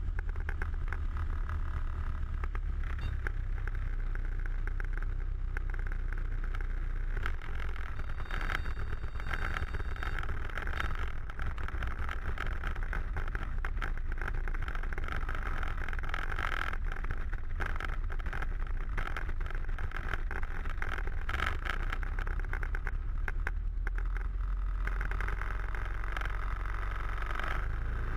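Light aircraft's piston engine and propeller running steadily, heard from inside the cockpit as the plane rolls along the runway, with a deep drone and a crackly rush of air over the airframe.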